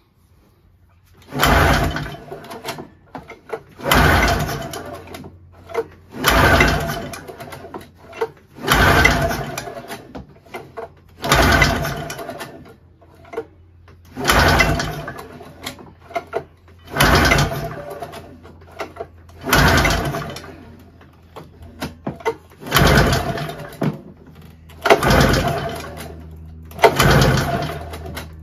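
Ski-Doo Formula MX snowmobile's Rotax two-cylinder two-stroke engine pulled over by its recoil starter about eleven times, one pull every two to three seconds, each a short burst of cranking that dies away without the engine firing. It is a no-start even with fuel sprayed down the spark plug holes.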